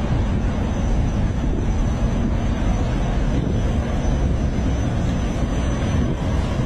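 Steady low rumble of a river cargo barge's diesel engine under way, with a noisy wash over it.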